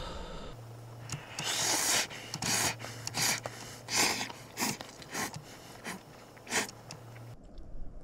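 A person slurping hot instant ramen noodles, a run of about nine short, breathy slurps and sucking breaths, with a low steady hum underneath.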